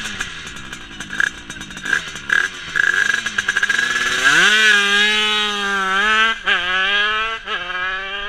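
50cc motorcycle engine revving in quick throttle blips, then climbing to high revs about four seconds in and held there, with brief dips in pitch three times.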